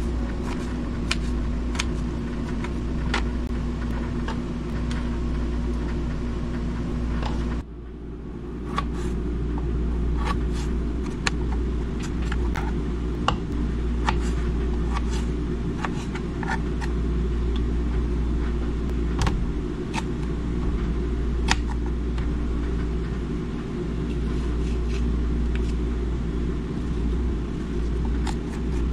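Knife clicking and tapping on a plastic cutting board in short, scattered strokes, over a steady low machine hum. About eight seconds in the hum briefly dips and loses its tone, then carries on.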